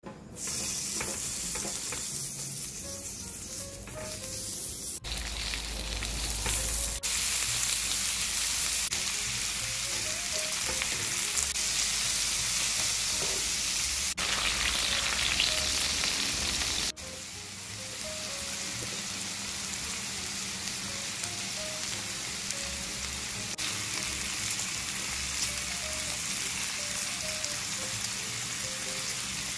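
Slices of pork belly sizzling and spitting on a hot round grill plate, a steady frying hiss with a few abrupt changes in loudness.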